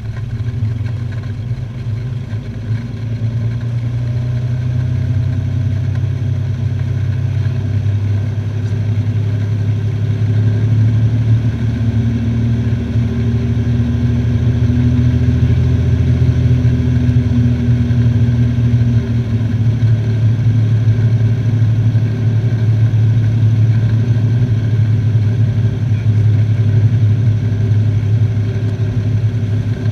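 Cessna 206's flat-six piston engine and propeller running at low taxi power on the ground, a steady drone with a strong low hum that swells slightly a few seconds in.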